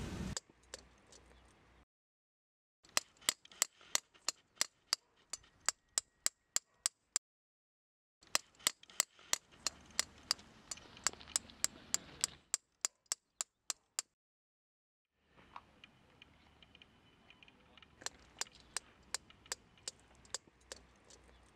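Footsteps on a pebbly, rocky beach: sharp, regular clinks of stones underfoot, about three a second. They come in three separate runs, each breaking off into dead silence.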